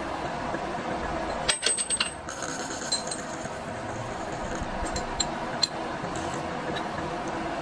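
Milling machine running steadily with its gear cutter cutting a tooth into a teflon (PTFE) bevel gear blank. Sharp metallic clicks come through it: a quick cluster about a second and a half in and a few single ones later.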